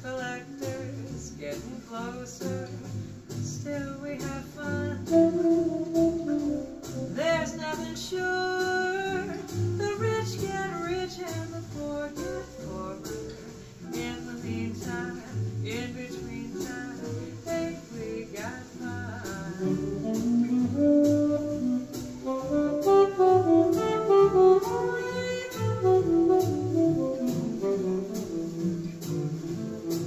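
Recorded music played back through a pair of Infinity SM65 bookshelf speakers, picked up in the room: a melodic lead line with gliding notes over a steady beat.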